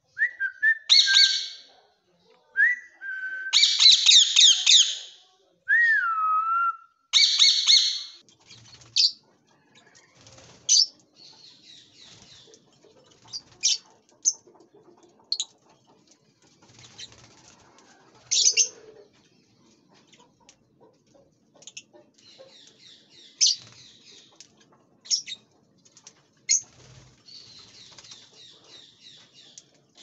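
Pet parrots, lovebirds and cockatiels, calling. In the first eight seconds there are loud shrill screeching calls and a couple of sliding whistles. After that come sparser, quieter sharp chirps.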